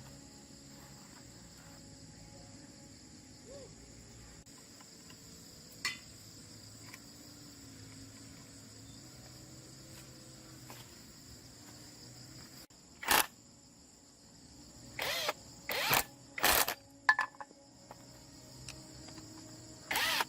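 Steady high-pitched buzz of insects such as crickets. About two-thirds of the way in, a run of loud, short noises breaks in, around seven of them in quick succession toward the end.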